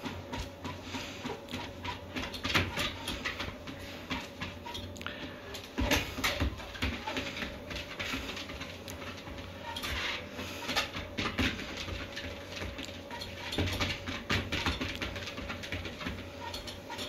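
A Shiba Inu's paws and claws pattering irregularly on a moving treadmill belt, over the steady hum of the electric treadmill's motor.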